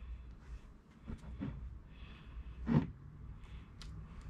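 Soft handling and rustling noises with scattered light clicks, and one louder short knock about three seconds in, over a low steady hum.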